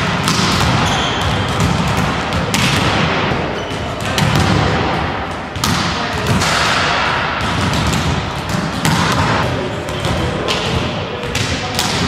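Volleyballs being struck by hands and bouncing on a wooden gym floor: irregular sharp thuds over a steady background of hall noise.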